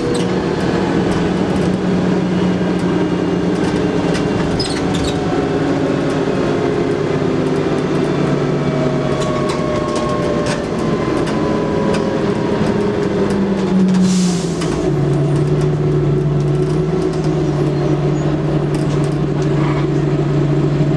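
Diesel bus engine and drivetrain heard from inside the passenger saloon, working under way with long rising whines as it pulls. A short hiss comes about two-thirds of the way through, then the engine settles to a steady idle.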